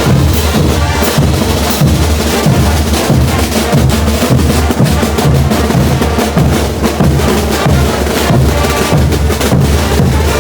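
Bolivian brass band playing, with a heavy bass drum beat, snare drum and brass.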